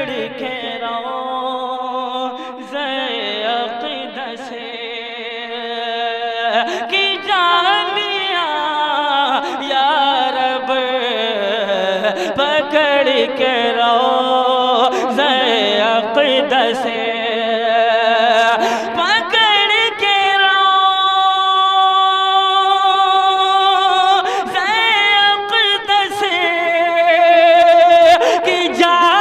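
A man singing a naat solo, in drawn-out notes with a wavering, ornamented melodic line. About two-thirds of the way through he holds one note steadily for several seconds.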